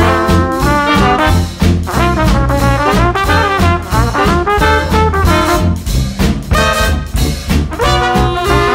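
Background jazz music led by brass instruments, trumpets and trombones, over a steady beat.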